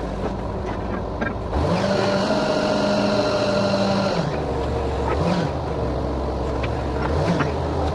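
Engine of a borewell drilling rig running steadily. It revs up about a second and a half in, holds the higher speed for a few seconds, then drops back, with a few short knocks over it.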